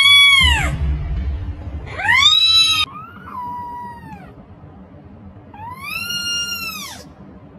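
Young kittens meowing, four high cries that each rise and fall in pitch. The first calls come from a newborn kitten about a week old, the later ones from a four-week-old kitten; the one at about three seconds is softer and lower.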